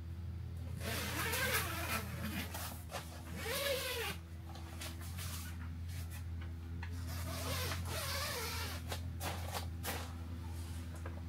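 An animal calling three times, each call short and rising then falling in pitch, followed by a series of light clicks and knocks, over a steady low hum.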